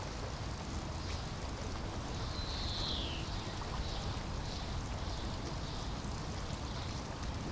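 Steady low rushing background noise with one high, falling whistle-like call about two and a half seconds in, then a few faint high chirps.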